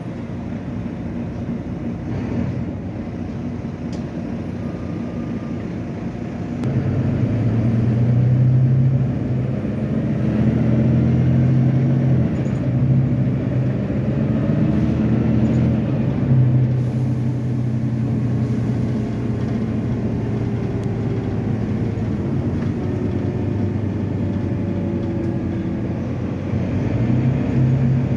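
Volvo B9TL double-decker bus's six-cylinder diesel engine running steadily, growing louder about seven seconds in and holding there.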